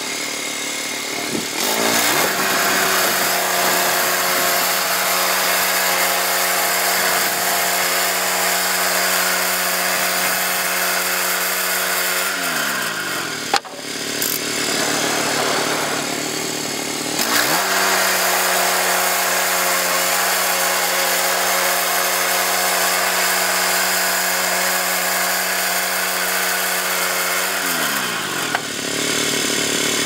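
Woodland Mills HM122 portable bandsaw mill's gas engine running at full throttle, driving the band blade through a log. About twelve seconds in the engine winds down to idle, then speeds back up about seventeen seconds in for another pass, and winds down again near the end.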